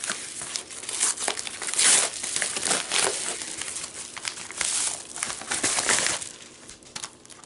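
Yellow padded paper mailer envelope being torn open and handled by hand: irregular paper crinkling and ripping, dying down a little after six seconds in.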